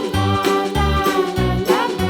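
Upbeat children's background music: a nursery-rhyme style tune with a steady bass beat and a sung or synthesized melody.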